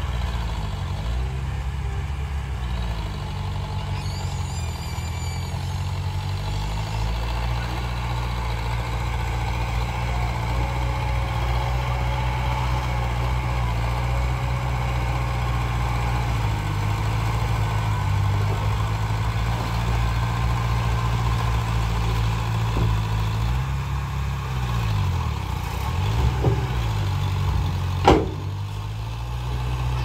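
Diesel engines of a dump truck and a small crawler bulldozer running, the engine note rising and falling as they work. A single sharp bang comes about two seconds before the end.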